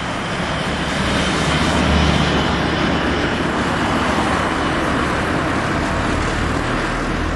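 Steady outdoor city-street noise: an even hiss with a low rumble underneath and no distinct events.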